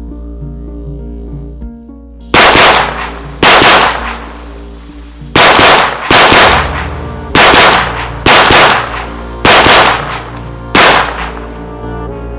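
Eight shots from an AR-style .410 shotgun, unevenly spaced about one to two seconds apart, over background music.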